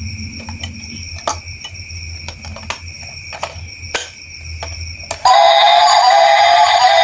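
Sharp clicks over a steady high tone and a low hum, then loud music with synthetic-sounding singing cuts in suddenly about five seconds in.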